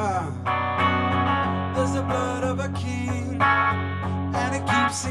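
Live song: a black archtop electric guitar strummed and ringing out, with a man singing into the microphone.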